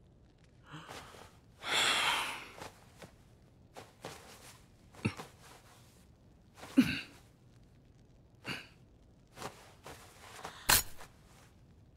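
Quiet, scattered breaths, sighs and gasps from an anime character, including one short voiced gasp about seven seconds in, with a few brief soft clicks between them.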